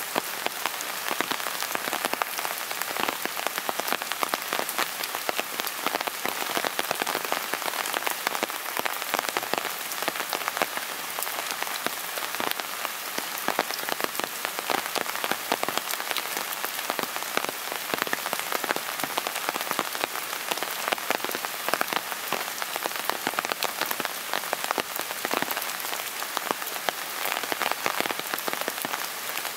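Steady rain falling, with a dense, irregular patter of drops striking close by.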